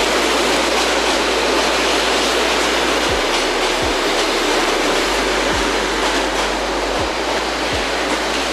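Suburban electric train running, a loud steady rushing noise with no distinct clicks or tones.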